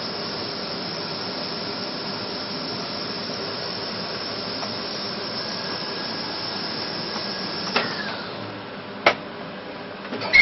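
A small machine running with a steady hiss and a faint whine, cutting off about eight seconds in with a click as the whine falls away, followed by two sharp clicks.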